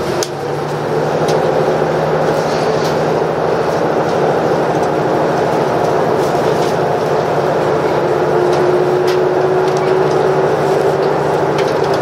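Cabin noise of a KiHa 85 series diesel railcar pulling away from a station: the Cummins diesel engines and running gear drone steadily, growing louder in the first second as the train picks up speed, with a faint rising tone later on.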